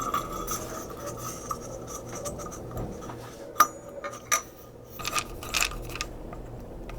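Small clicks, scrapes and rubbing of metal light-fixture parts and stiff solid wire being handled as the wires are worked through the socket's hole, with one sharper metallic click about three and a half seconds in that rings briefly.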